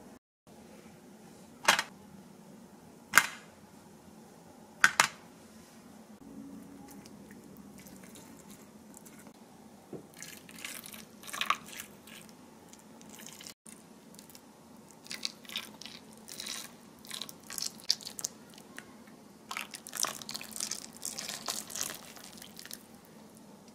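Kitchen food-prep sounds: three sharp knocks about a second and a half apart, then from about ten seconds in, irregular bouts of scraping and rustling.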